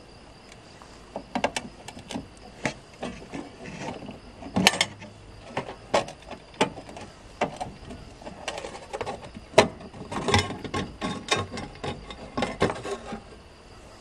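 A thin metal cover plate being worked loose and lifted out from over a gas fridge's burner: irregular light clicks and knocks of metal on metal and plastic, with two sharper knocks, one about a third of the way in and one past halfway.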